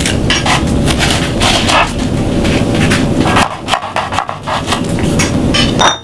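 Kitchen knife chopping a red onion on a cutting board: an irregular run of quick knocks, with a brief lull a little past halfway.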